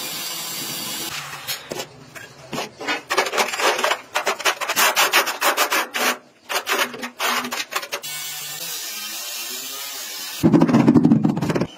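Hand scraping or rubbing in quick rhythmic strokes, several a second, over a hard surface during tile work. A louder burst of noise comes near the end and cuts off suddenly.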